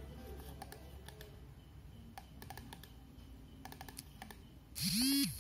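Scattered light clicks of a Microsoft Designer Bluetooth Mouse being clicked while it is tried out. Near the end comes a short, loud pitched sound that rises and then falls in pitch.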